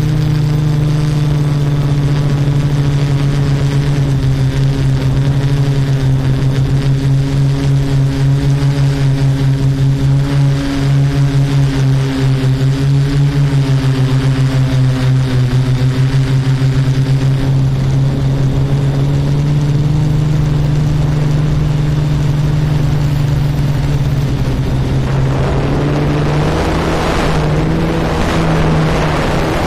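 Multirotor drone's propellers and motors humming steadily from the aircraft itself, a low hum with overtones that waver slightly in pitch and pulse in loudness through the middle. Wind rushes over the microphone near the end.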